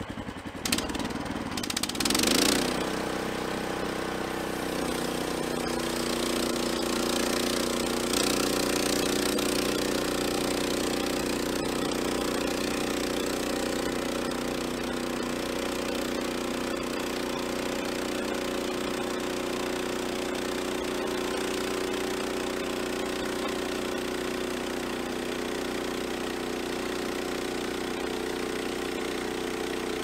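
The small gas engine of a portable band sawmill is started and catches about two seconds in, then runs steadily, getting a little louder about eight seconds in.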